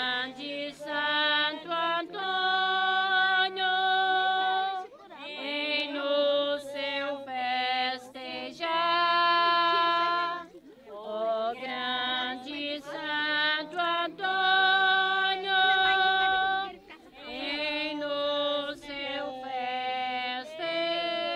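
A woman singing a slow folk song, unaccompanied, in four long phrases with held notes.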